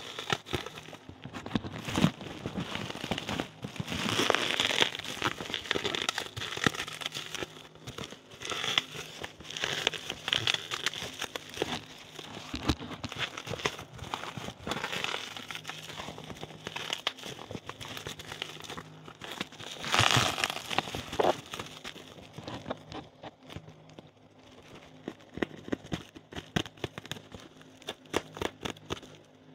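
Plastic bubble wrap being handled and pulled open around a cardboard box: continuous crinkling and rustling with many sharp little clicks, louder about four seconds in and again around twenty seconds.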